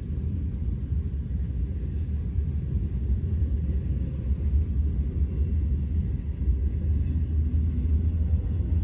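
Freight train of covered hopper cars and tank cars rolling past, a steady low rumble of wheels on rail.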